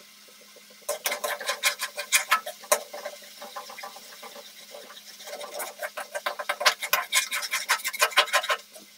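Metal spatula scraping and clattering against a metal kadhai while stirring khoya frying in a little ghee. It comes in two bouts of rapid strokes, the first about a second in and the second from about five and a half seconds.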